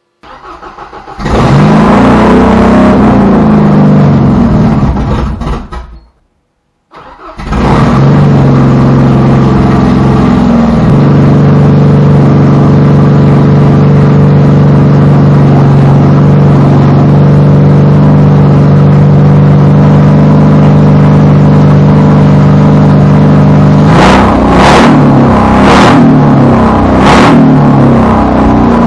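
A 1972 MGB GT's 1.8-litre B-series four-cylinder engine, newly fitted with a modified Peter Burgess cylinder head, starting for the first time. It catches after about a second of cranking, runs unevenly for about five seconds and stops. It restarts at once and settles into a steady idle, then is revved briefly a few times near the end.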